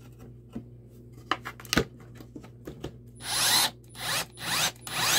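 Power drill with a screwdriver bit driving a screw into a pressboard panel, run in three short bursts in the second half, after a few clicks and taps of handling.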